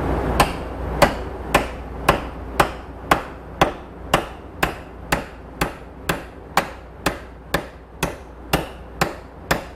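Steady metal hammer blows on a seized U-joint in a bush hog drive shaft, heated first, to drive it loose: about two evenly spaced strikes a second, around nineteen in all.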